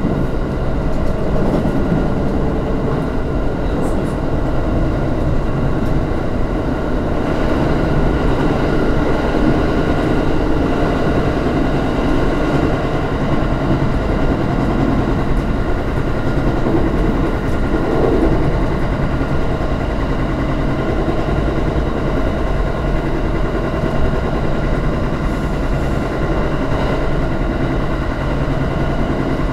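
Electric multiple-unit train running steadily along the line, heard from inside the car: an even rumble of wheels on rail with a faint steady hum.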